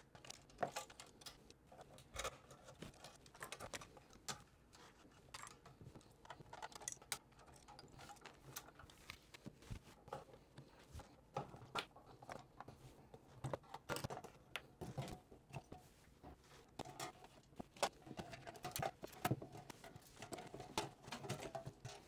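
Faint, scattered clicks, scrapes and taps of screwdrivers turning out small screws and of metal parts being handled as a sheet-metal server case is taken apart.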